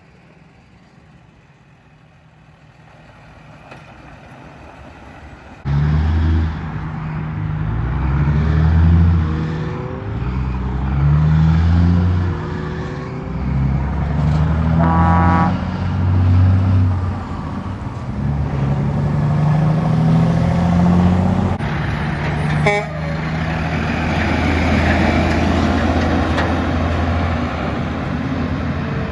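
Heavy diesel trucks pulling away and accelerating, engine pitch climbing and dropping back in steps as they shift gears. The first few seconds are quieter road noise, and a brief air horn blast sounds about halfway through.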